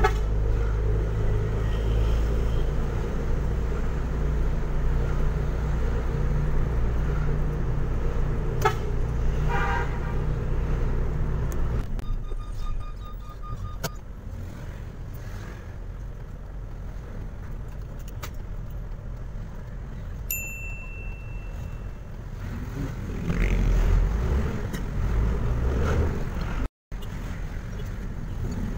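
Truck engine heard from inside the cab, running steadily under way, then dropping to a quieter idle about twelve seconds in as the truck stops in traffic, and picking up again a few seconds before the end. A horn toots briefly about nine seconds in.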